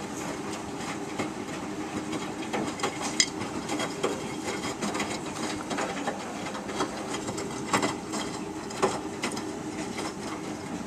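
Miele Distinction 3000 washing machine on a cottons main wash, its drum tumbling the laundry over a steady motor hum. Sharp clicks come now and then, the loudest about three seconds in and twice near the end.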